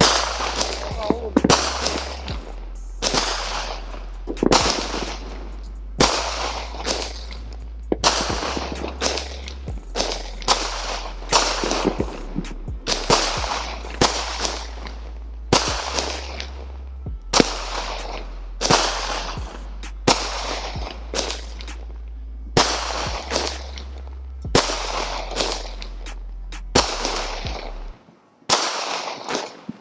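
Phantom "Wicked Bazaar" consumer firework cake firing shot after shot, about one every second and a half. Each sharp report is followed by a crackle that dies away over about a second.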